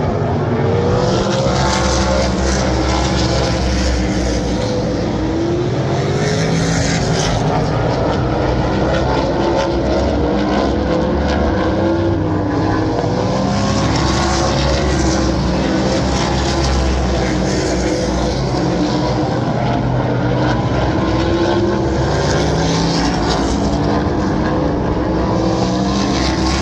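A field of winged sprint cars racing on a paved short oval, their V8 engines at full throttle, with the pitch rising and falling as the cars go round the turns and pass close by.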